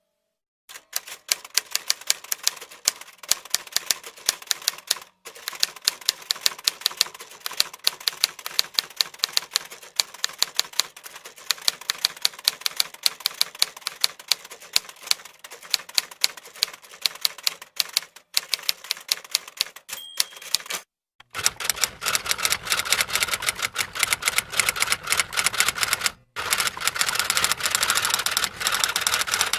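Fast typing on a computer keyboard: a dense, rapid run of key clicks, many a second, broken by a few short pauses. About two-thirds of the way through, the clicks turn louder and fuller.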